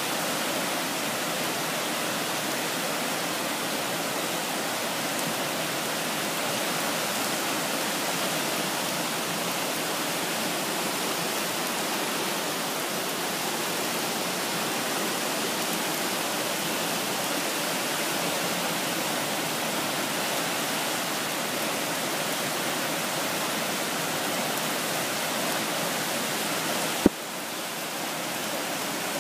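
Steady rushing roar of the South Fork Snoqualmie River in flood, fast brown water churning through standing waves. A single sharp click near the end.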